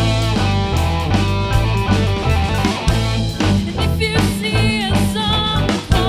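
Live rock band playing: electric guitar, drum kit and keyboards over steady bass notes. From about four seconds in, women's voices sing a wavering, vibrato-laden line over the band.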